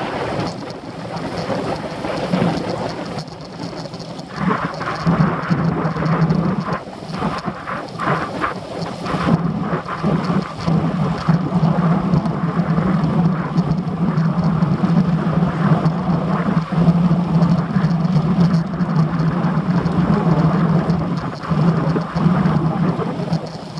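Wind rushing and buffeting over the microphone of a handlebar-mounted action camera on a moving road bike, loud and gusting, with a steady low hum underneath.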